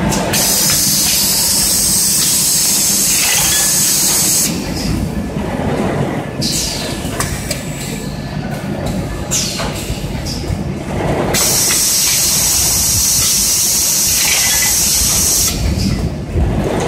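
Six-cavity PET bottle blow molding machine running, with a steady clattering and rattling of machinery throughout. A loud compressed-air hiss lasts about four seconds, first near the start and again about two-thirds through, and shorter hisses of air come in between.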